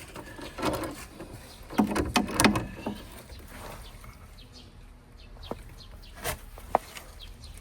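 Hand tools clinking and knocking on a car's suspension while a seized stabilizer link nut is worked loose. Irregular sharp metallic clicks come throughout, with the loudest cluster about two seconds in.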